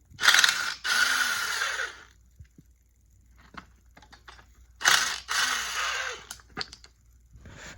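Ratchet with a 12 mm socket running on the motorcycle's exhaust mounting bolts, loosening them in two runs of about two seconds each, with a few small clicks between.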